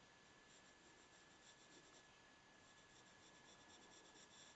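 Faint scratching of a graphite pencil on paper in many short, quick strokes, starting about half a second in.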